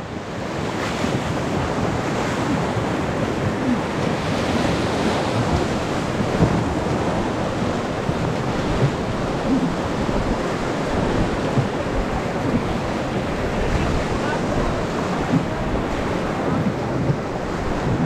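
Whitewater rapids rushing and splashing around an inflatable raft, with wind buffeting the microphone.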